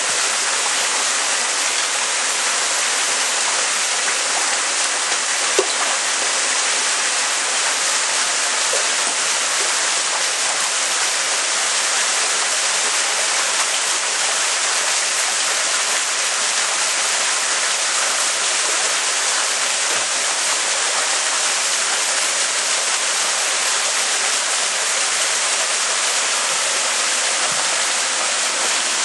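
Water running and splashing steadily into a koi holding tank, a continuous even rush.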